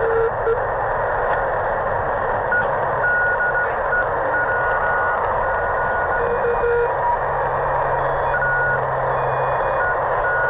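YouKits HB-1B QRP CW transceiver's speaker giving out steady shortwave receiver hiss, with Morse code signals keyed through it as short and long beeps. Most of the beeps are at one higher pitch, with a few at a lower pitch near the start and about two-thirds through.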